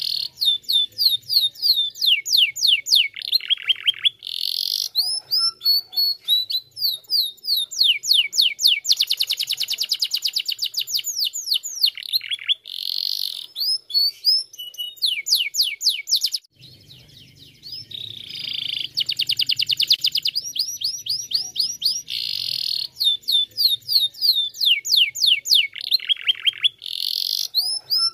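Domestic canary singing a long, loud song of rapid trills: fast runs of repeated sweeping notes, changing from one trill to the next, with a brief pause about two-thirds of the way through.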